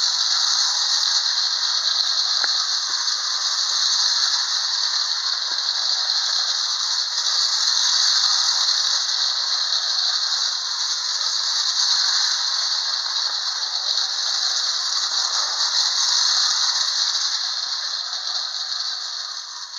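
Marx toy locomotive's clockwork wind-up motor running, a steady high buzzing rattle of spinning gears with the wheels rolling on the track. It fades away near the end as the spring runs down and the loco stops.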